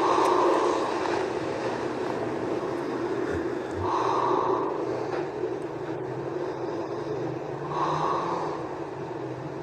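A sleeping person snoring, one breath-sound roughly every four seconds, over a steady hum.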